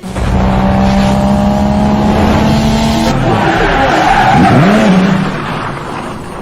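Loud car engine with skidding tyres: a steady engine tone for about three seconds, then a swooping rise and fall in pitch, fading near the end.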